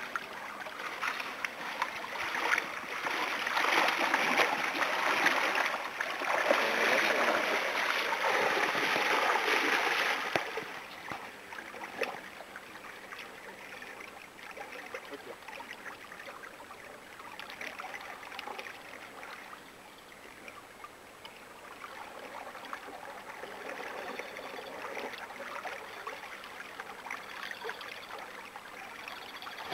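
Water splashing as a plastic tub of fish is tipped and emptied into a shallow river, loudest for the first ten seconds or so. After that the river's steady flow carries on with light splashes around the tub.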